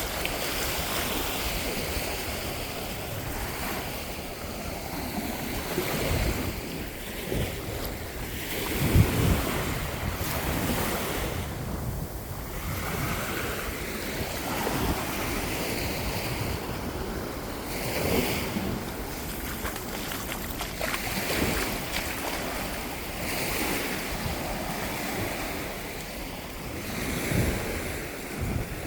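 Ocean waves washing onto a beach, with wind buffeting the microphone in low gusts, the strongest about nine seconds in.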